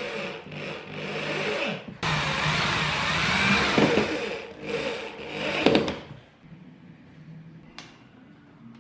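Electric hand drill running in short runs as it bores holes through the rim of a bonsai pot, loudest from about two seconds in while the bit cuts; it stops about six seconds in, and a single click follows.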